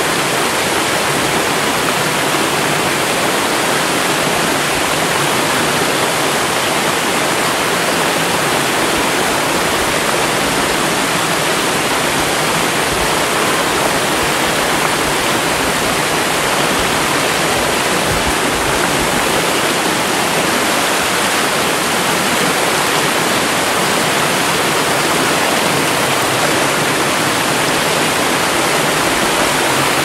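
Silvermine Waterfall cascading down a rock face into a pool, a steady rush of water.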